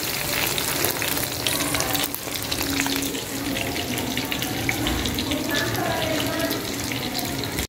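Hot oil sizzling steadily in a pan where pieces of black pomfret are still frying, with scattered small clicks.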